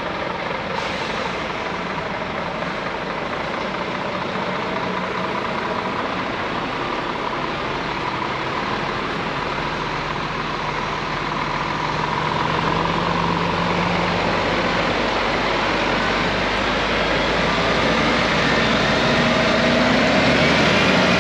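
Scania S500 truck's 13-litre six-cylinder diesel engine running as the truck pulls away, growing louder about halfway through.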